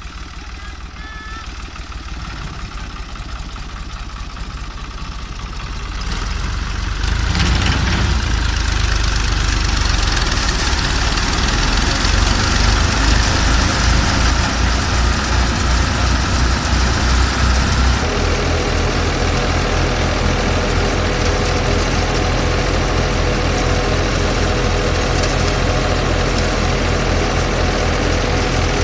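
Fiat 480 tractor's diesel engine running steadily while it drives a threshing machine at pearl-millet threshing. The sound grows louder about seven seconds in, and from about eighteen seconds in a steady hum and a faster engine beat join it.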